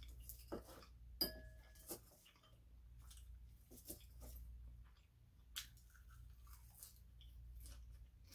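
A metal fork clinking and scraping against a ceramic bowl while salad is picked up, with soft chewing and crunching in between. The loudest moment is a single sharp clink a little over a second in, which rings briefly.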